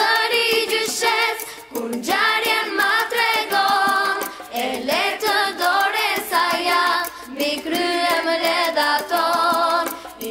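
Music: a song sung by several voices in phrases a few seconds long, with vibrato on the held notes.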